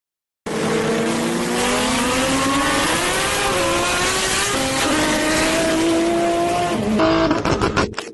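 Tuned Toyota Supra engine under load, starting abruptly about half a second in, its pitch climbing steadily and dropping back twice. About seven seconds in it gives way to rapid sharp exhaust pops and crackles.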